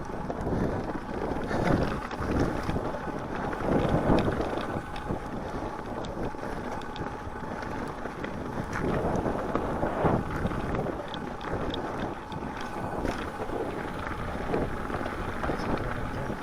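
Mountain bike rolling along a dirt and snow trail, with steady wind buffeting the microphone and scattered clicks and rattles from the tyres and bike.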